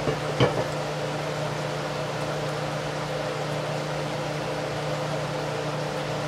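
Steady mechanical hum in a kitchen, with two light knocks near the start, about half a second apart, as a wooden spoon stirs beef and broccoli in an enamelled frying pan.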